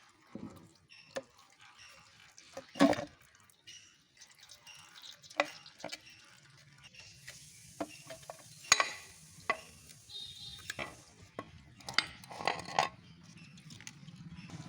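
Metal tools and engine parts clinking and knocking as a Bajaj Pulsar 150 engine is unbolted and taken apart. The clicks are irregular, with a louder clank about three seconds in and a cluster of knocks near the end, and a hiss in the middle.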